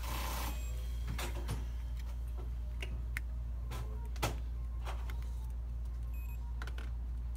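Multimeter probe tips tapping and scraping on the components and solder joints of a power supply circuit board while the FETs are tested: a scatter of small sharp clicks, the loudest about four seconds in, over a steady low hum.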